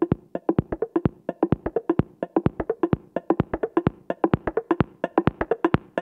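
Background music: a quick, even run of short, woody, plucked-sounding percussive notes.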